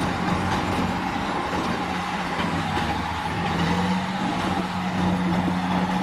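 Eight-wheel dump truck's diesel engine running steadily while its tipper bed is raised to dump earth, the engine note rising slightly about halfway through.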